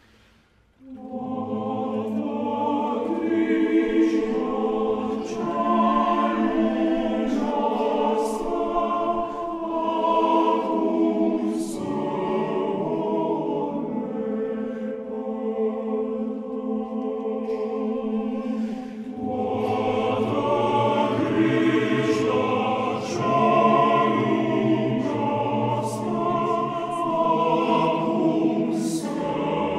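Men's choir singing Orthodox sacred music in Romanian. The voices come in together about a second in after a brief hush and hold slow, sustained chords, with the low bass part growing stronger about two-thirds of the way through.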